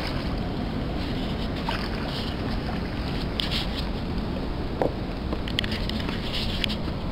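Steady rush of river water with wind on the microphone, broken by a few brief higher hisses and clicks.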